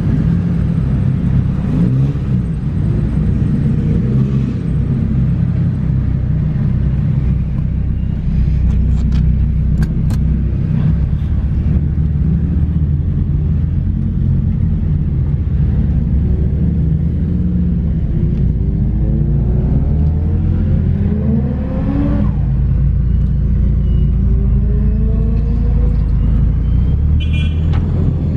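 Car engine running under load, its pitch climbing steadily and then dropping suddenly about three quarters of the way through, as at a gear change, before climbing again. A few sharp clicks sound near the middle.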